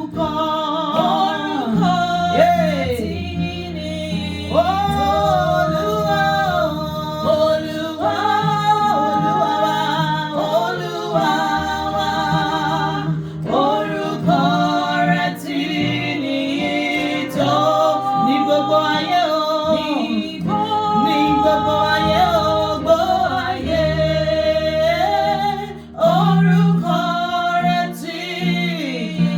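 Worship song: a solo voice sings long, wavering phrases over instrumental accompaniment with a steady bass.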